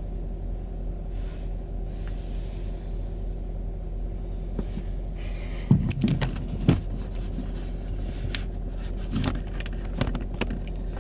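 A steady low hum with a few short knocks and clicks, a cluster about halfway through and two more near the end.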